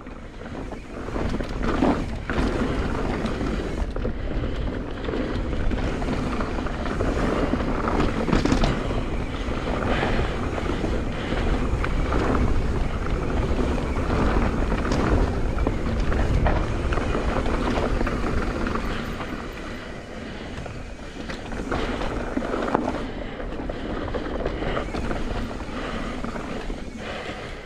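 Mountain bike descending a dirt trail at speed: wind rushing over the microphone and tyres rolling over dirt and rocks, with frequent knocks and rattles from the bike over bumps.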